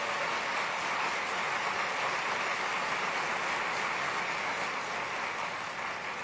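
Audience applause, a steady clatter of many hands that tapers off near the end.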